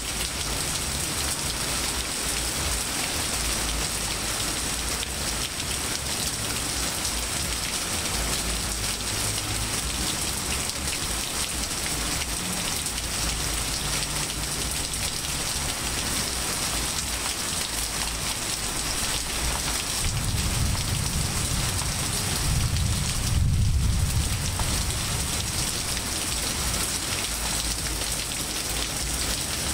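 Steady heavy rain falling on pavement, grass and trees, an even hiss. About twenty seconds in a low rumble swells for a few seconds and fades.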